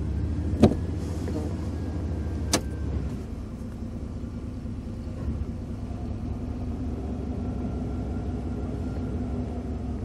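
A 1995 Chevy Silverado's 5.7-litre TBI V8 idling steadily, heard from inside the cab. There is a sharp clunk about half a second in and a lighter click at about two and a half seconds as the NP241-C transfer case lever is shifted.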